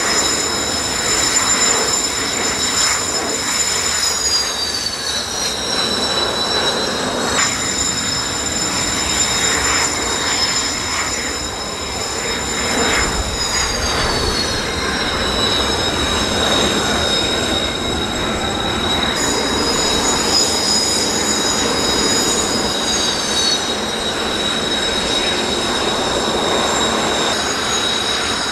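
Jet engines of Kawasaki T-4 trainers whining on the ground. Several high, steady whine tones slide lower in pitch a few times over a continuous roar.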